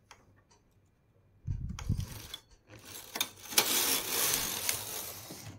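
Knitting machine carriage pushed along the needle bed over the needles, a noisy sliding run of about three seconds that is loudest near the end. A low knock comes about a second and a half in.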